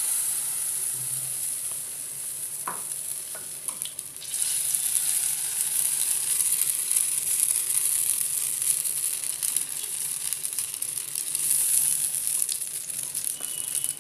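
Uttapam batter sizzling in hot oil in a non-stick frying pan: a steady high hiss with fine crackling that grows louder about four seconds in. There are a few light clicks near the three-second mark.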